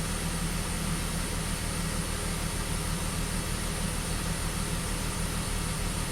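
BMW X5's six-cylinder engine idling steadily, running smoothly for the moment with its misfire briefly gone.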